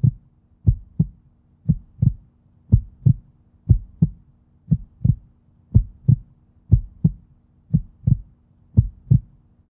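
Heartbeat sound effect: low 'lub-dub' thumps in close pairs, about one pair a second, stopping shortly before the end.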